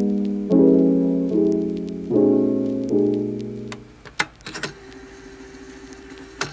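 Background song on piano: chords struck about once a second and left to ring, the last one dying away about four seconds in. After that only a few faint clicks and a low, quiet tone.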